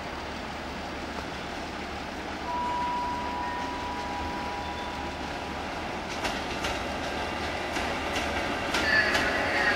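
FS ETR 460-family Pendolino electric train rolling across the station tracks: a steady rumble, then from about six seconds in, a run of sharp clicks as its wheels cross rail joints and points, with a brief wheel squeal near the end, growing louder as it comes closer.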